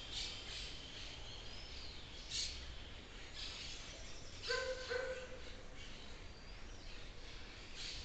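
Forest birds chirping and calling on and off over a steady low rumble. About halfway through come two short, louder pitched calls in quick succession.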